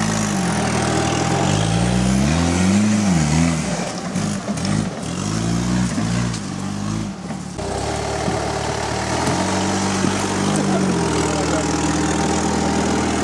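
Engine of a tube-frame off-road buggy, its revs rising and falling several times in the first half of the clip as it works over rough ground, then running steadily.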